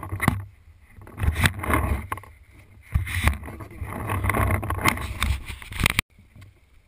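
Wind buffeting and rubbing noise on a GoPro action camera's microphone as the player moves, with a few scattered knocks from footsteps and gear. It cuts off suddenly about six seconds in.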